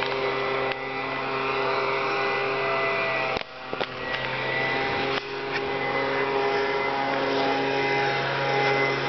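An engine running at a steady speed, with a few short knocks or clicks over it.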